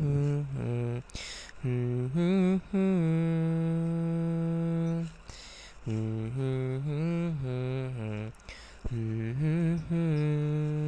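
A solo unaccompanied voice humming a wordless melody in three phrases, each bending and then settling on a long held note, with short audible breaths between them.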